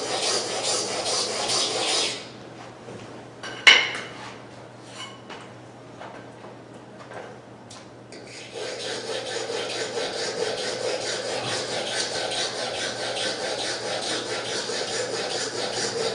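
Steel chisel rubbed back and forth on a sharpening stone, a rhythmic scraping. It stops for several seconds, with one sharp metallic clink and a few light clicks, then the strokes start again.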